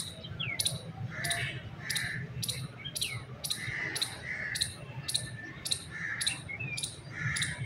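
A bird chirping over and over, about two short high chirps a second, with a few lower notes that slide downward among them, over a steady low hum.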